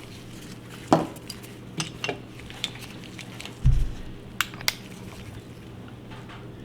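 Scattered light metallic clicks and clinks of a 1911 pistol barrel and cleaning gear being handled, with a duller low thump about three and a half seconds in, over a faint low steady hum.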